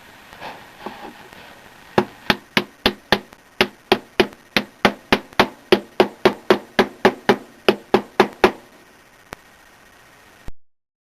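Hammer blows in a steady run of about two dozen strikes, roughly four a second, in work on a front-load washer's drum bearing; a few faint taps come before them and one last knock near the end.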